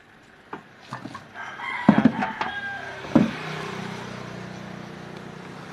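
A rooster crowing, its call bending in pitch, about two seconds in, with sharp knocks at about two and three seconds. A steady low hum sets in after about three seconds.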